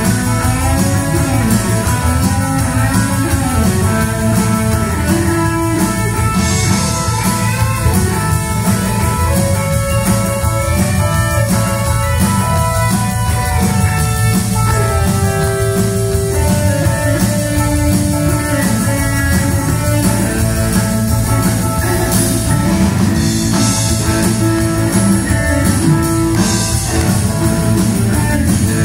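Live rock band playing, with guitar over a drum kit.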